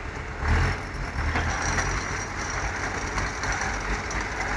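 Engines of a TDT-55 tracked logging tractor and a ZIL-131 truck running steadily as the tractor tows the truck, with a faint high whine joining about one and a half seconds in.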